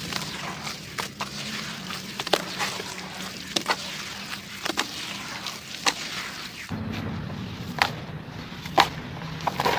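Dry, crumbly clumps of sand and dirt being crushed and broken apart by hand, giving irregular sharp crunches and cracks over a soft gritty hiss. About seven seconds in, the sound changes and a low steady hum comes in under the crunching.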